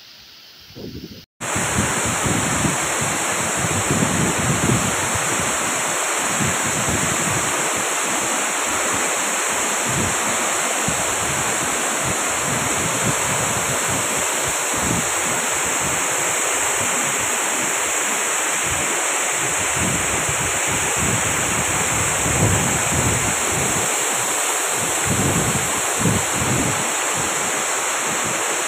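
Waterfall: a loud, steady rush of falling water with wind buffeting the microphone in irregular low gusts. It starts abruptly about a second in, after a brief quieter stretch.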